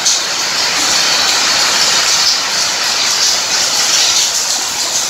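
Strong wind blowing: a loud, steady rushing hiss that swells and eases slightly.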